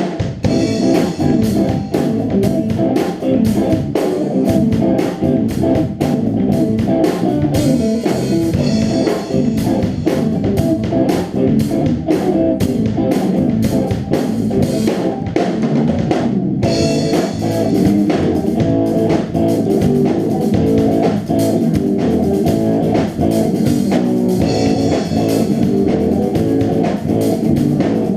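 Band playing an original funk jam on electric guitar, bass guitar and drum kit, with a steady beat. The playing briefly thins out about 16 seconds in, then resumes.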